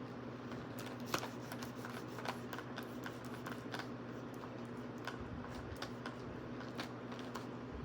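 Cardboard toy packaging being cut and pried open: irregular small clicks and scratches, with a steady low hum underneath.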